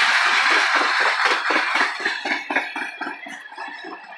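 Steel wheels of empty oil tank cars rolling past on the rails: a quick rhythmic run of short squeaks and clicks, several a second, fading away toward the end.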